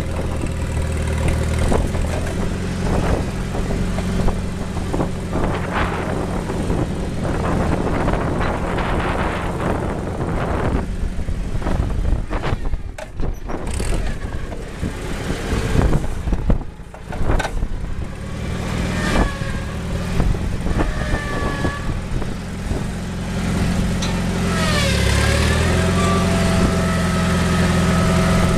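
Old forklift's engine running steadily while it is driven, with high squealing whines that glide up and down in pitch during the second half.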